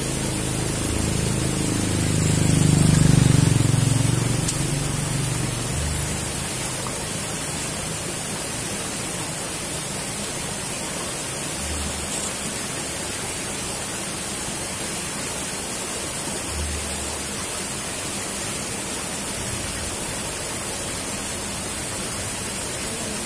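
Water pouring out of a concrete culvert into a ditch, a steady rushing and splashing. A low rumble swells and fades about three seconds in.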